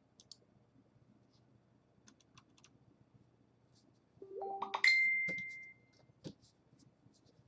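A short electronic notification chime, a few quickly rising notes ending on a high ringing note that fades, about four seconds in, among faint scattered computer clicks.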